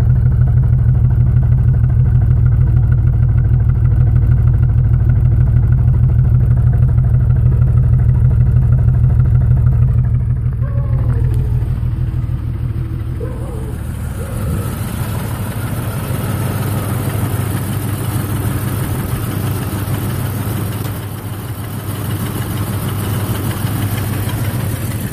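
1996 Jeep Grand Cherokee's straight-six idling roughly, heard at the exhaust: a loud, steady low chug from an engine misfiring on all cylinders and running really rich. About ten seconds in the engine sound drops in level and turns hissier.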